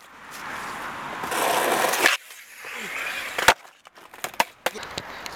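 Skateboard on asphalt: a rolling, rising rush of wheel noise that cuts off suddenly about two seconds in. About a second later comes one sharp clack of the board hitting the ground, followed by a few lighter knocks.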